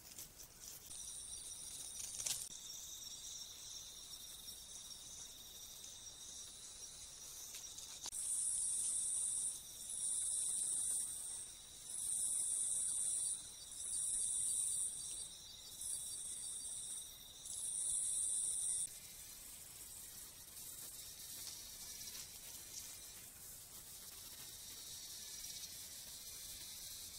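Insects calling: a steady high-pitched trill, joined by six loud, high buzzing pulses of about a second and a half each, a short gap between them. The calling stops abruptly about two-thirds of the way through, leaving a faint steady hiss. A single click about two seconds in.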